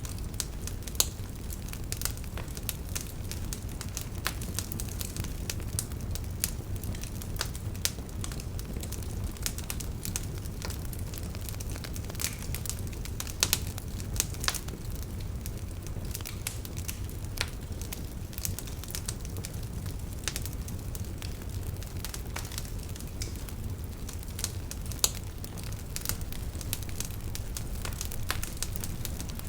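Fire burning in a fireplace, crackling steadily with many small sharp pops over a low rumble of the flames. A few louder pops stand out: about a second in, around halfway through and near the end.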